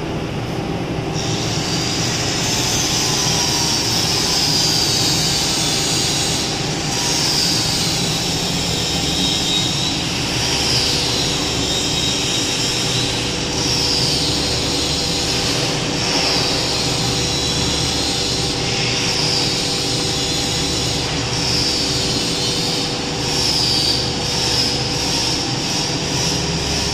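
PUR laminating line for honeycomb doors running: a steady machine hum with high squeals that come and go every couple of seconds.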